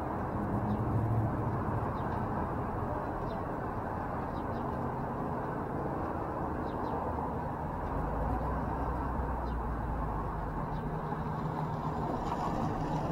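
Steady street traffic noise with a low engine rumble, and a car driving close by near the end. A few faint high chirps sound over it.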